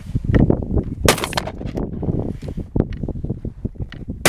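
12-gauge Baikal MP-155 semi-automatic shotgun firing a handloaded slug round: one sharp shot about a second in, and another right at the very end.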